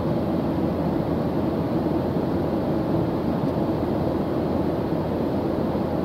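Steady cabin noise of a jet airliner in flight: an even, low-pitched rumble of engines and rushing air that does not change.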